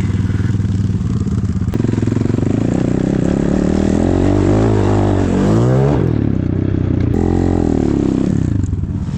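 Enduro dirt bike engine running under load, its revs rising and falling several times from about four seconds in.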